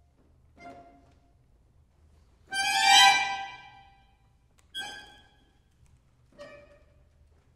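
Orchestra of bayans and accordions playing four separate sustained chords with pauses between them. The second chord, about two and a half seconds in, is the loudest; it swells, then fades away in the hall's reverberation.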